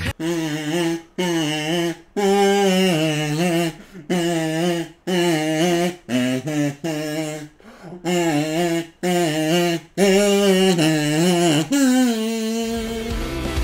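Kazoo playing an anime opening melody in short buzzing phrases with brief breaks, ending on a long note that slides down and is held.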